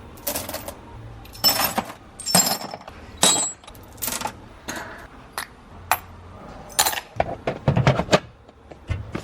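Loose steel bolts, mostly 10 mm, being tossed by the handful into storage bins, making an irregular string of metallic clinks and rattles.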